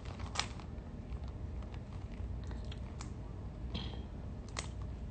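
A few sharp, separate clicks and cracks of seafood shells being broken apart by hand, over a low steady room hum.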